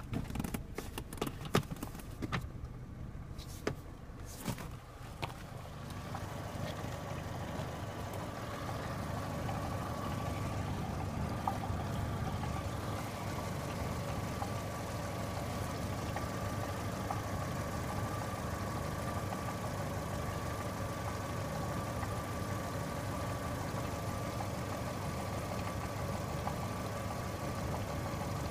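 Saturn S-series four-cylinder engine running steadily at idle, with a steady whine over it; a few sharp knocks come in the first few seconds. The idle carries a clanking the owner likens to a muffled cowbell and believes comes from something loose in the front exhaust pipe or catalytic converter.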